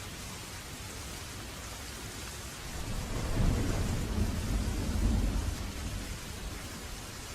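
Steady rain falling, with a low rolling rumble of thunder that builds about two and a half seconds in, swells twice and fades out by about six seconds in.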